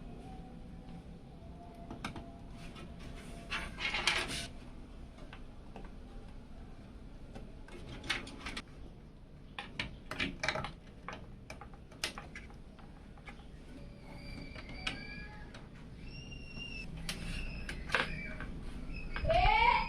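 Scattered clicks and knocks of computer parts and screws being handled and fitted, with birds chirping in the background during the second half.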